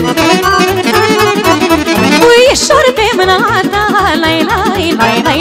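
Live Romanian folk band playing an instrumental dance tune: accordion leading over a steady bass beat, with a wavering vibrato melody line coming in about halfway through.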